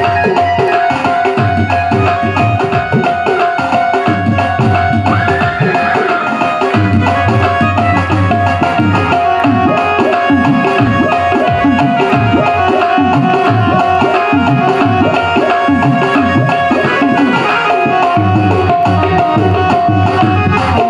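Indian devotional music: tabla playing a steady rhythm under held, sustained tones from a melodic instrument.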